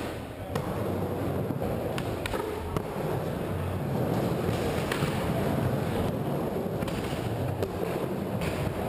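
Skateboard wheels rolling over the surface of a wooden bowl, a steady low rumble, with several sharp clacks of the board and trucks.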